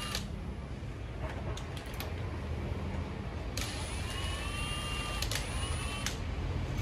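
A power tool whining for a couple of seconds over a steady low hum, rising slightly in pitch, starting and stopping with sharp clicks about halfway through.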